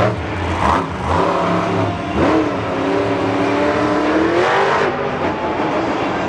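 Monster truck's supercharged V8 revving hard. Its pitch climbs steadily for a couple of seconds as the truck charges up a dirt ramp, then drops off suddenly about five seconds in as the throttle comes off at launch.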